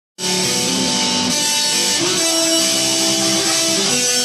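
Live band playing with guitars to the fore, sustained notes ringing over the rest of the band; the sound cuts in abruptly a moment in.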